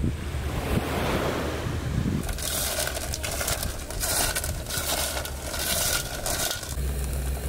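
Sea waves washing on the shore, with wind rumbling on the microphone. About two seconds in, the sound turns to a hissing wash that swells and ebbs several times. A low steady hum comes in near the end.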